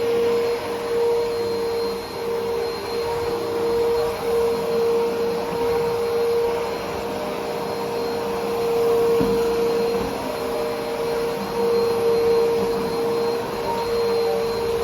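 Hoover WindTunnel T-Series upright vacuum cleaner running: a steady motor whine over rushing air, its level rising and falling a little.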